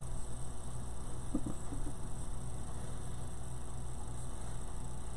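Steady low mains hum, with a few faint soft knocks about a second and a half in.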